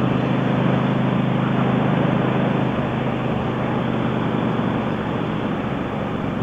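Motorcycle engine running at a steady cruise, with rushing wind noise over it.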